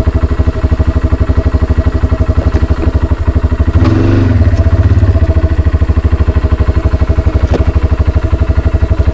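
Kawasaki Brute Force 300 ATV's single-cylinder four-stroke engine running steadily at low revs, with a brief rise in throttle about four seconds in.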